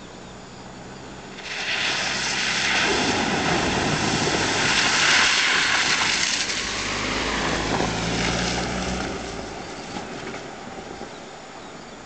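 Suzuki 4x4 driving past close by over a wet track: its engine running under a loud rushing of tyres through water and wet ground, loudest as it passes, then fading as it moves away.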